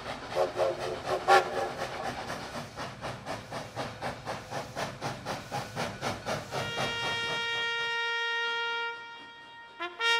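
Steam locomotive running with a regular chuff, about three beats a second, a short whistle about a second in. From about six and a half seconds a long steady whistle holds for over two seconds, and a trumpet comes in at the very end.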